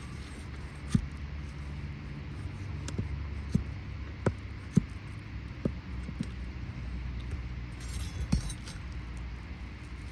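Irregular sharp metallic taps and clinks of a hammer and shingle snake working under an asphalt shingle to free its roofing nails, with a brief scrape about eight seconds in, over a steady low rumble.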